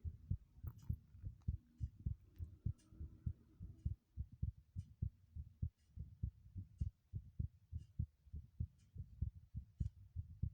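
Fast heartbeat: a steady run of short, low thumps, about four a second, with faint clicks about once a second.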